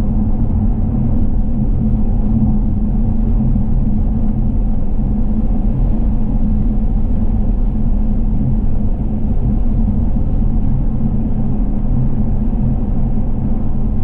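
A car driving: steady low rumble of road and engine noise with a low hum.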